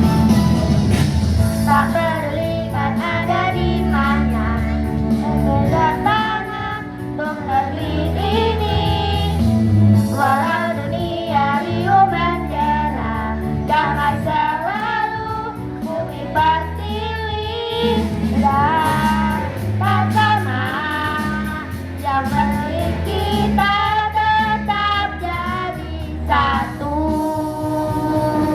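A children's choir singing an Indonesian song in unison over a recorded backing track with a strong bass line.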